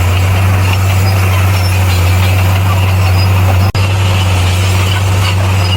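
Heavy diesel engine of a bulldozer running steadily with a deep, even drone; the sound cuts out for an instant about two-thirds of the way through.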